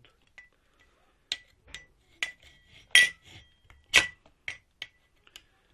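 A metal hand tool knocking and clinking against the metal parts of a washing-machine motor while prying off a tight washer. There are about eight sharp metallic clinks, each with a brief ringing, and the two loudest come about three and four seconds in.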